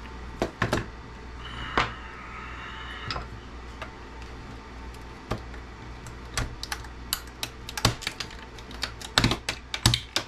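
Sharp clicks and taps of a CB radio's metal chassis and a small screwdriver being handled on a workbench during disassembly. There are a few at first, then they come quickly and irregularly over the last few seconds.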